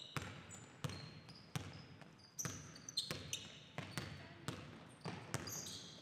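A basketball dribbled on a hardwood gym floor, bouncing steadily about once every two-thirds of a second, with short high squeaks of sneakers on the floor in between.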